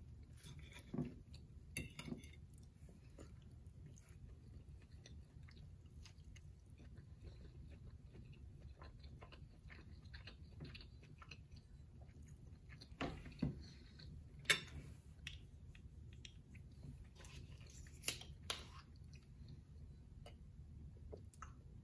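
Quiet close-up chewing and biting of food, with scattered sharp clicks over a faint low hum. A metal fork taps on a ceramic plate near the start, and near the end there is drinking from a plastic water bottle.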